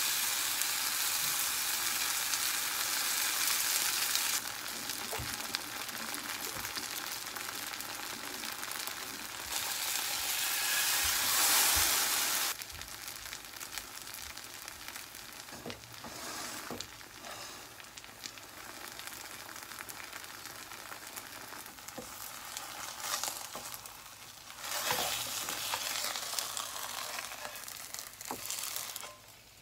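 Kimchi pancake batter frying in oil in a nonstick pan: a loud sizzle as the batter goes in, swelling again about ten seconds in and near the end, and settling in between to a quieter sizzle with a few light ticks.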